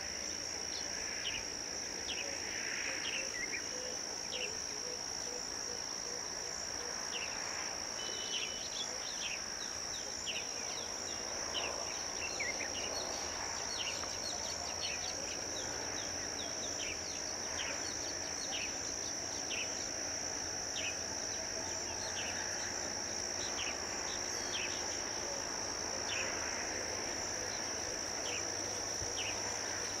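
A steady, high-pitched drone of insects, with short, high bird chirps scattered through it about once a second.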